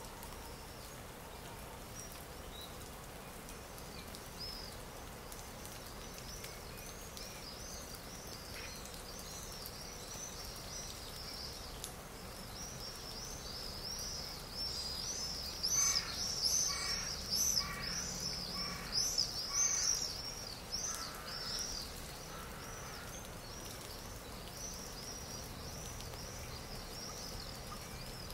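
Stock nature-sound track of many small songbirds chirping and twittering over a steady outdoor hiss. The chorus is busiest around the middle, where another bird gives a run of about five louder, lower calls roughly a second apart.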